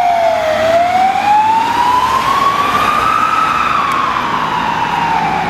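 Ambulance siren sounding a slow wail: the pitch dips, climbs for about three seconds, then falls again.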